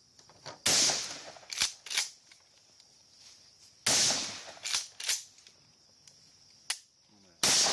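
Three gunshots about three seconds apart, each followed by a couple of fainter sharp cracks.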